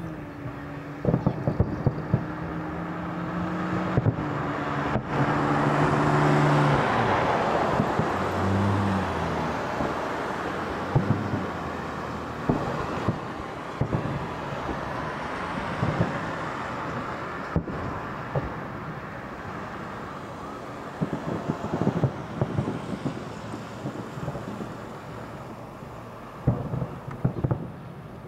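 Aerial firework shells bursting: a string of sharp bangs at irregular intervals, with a swell of noise about five to nine seconds in. A steady low hum runs under the first seven seconds or so.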